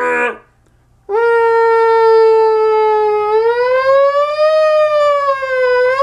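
A man imitating a fire truck siren with his voice: a short vocal blast right at the start, then about a second in a long held wail that slowly rises, falls back a little and rises again.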